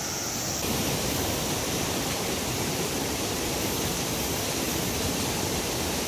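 Mountain stream rushing over rocks and a small cascade into a pool: a steady, even rush of water.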